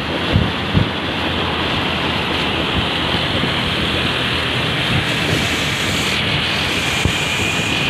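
Steady road and wind noise of a moving vehicle, with wind buffeting the microphone.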